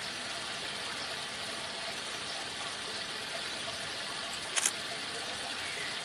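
Steady background hiss with a brief double click about four and a half seconds in.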